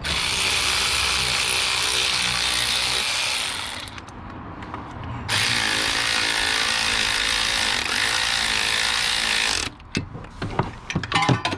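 Ratchet wrench running the mounting bolts of a replacement alternator on a 2004 Dodge Ram 1500 to tighten them down, in two long runs with a brief letup about four seconds in. A few knocks and clicks of tool and metal follow near the end.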